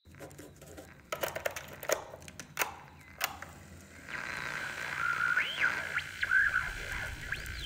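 A few sharp clicks and clacks of a cassette and recorder being handled. From about four seconds in, radio static as a tuning knob is turned, with whistling tones that slide up and down between stations.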